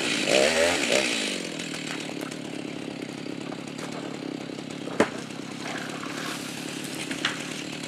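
Chainsaw engine coming down off high revs in the first second, then running on more quietly and steadily. A single sharp knock comes about five seconds in.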